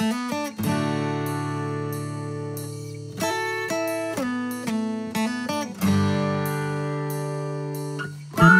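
Background music of plucked acoustic guitar: single notes and chords that ring out and fade. A louder passage begins near the end.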